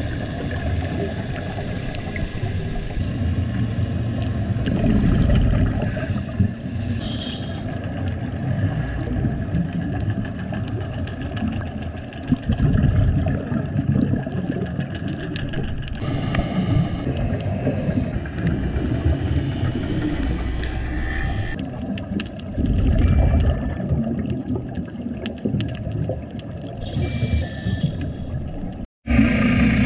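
Muffled underwater noise picked up by a camera in its waterproof housing: a low, steady rumble that swells louder every several seconds, with faint ticks and thin tones. The sound cuts out briefly near the end.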